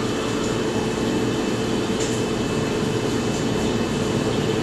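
Refrigerator serving as a fermentation chamber, its cooling unit running with a loud, steady hum while it chills the beer to near freezing.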